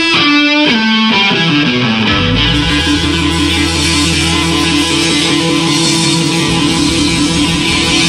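Live blues-rock band music led by electric guitar. A guitar phrase steps down in pitch at the start, then the band settles into a steady pulsing groove over a deep held bass note that drops out about six and a half seconds in.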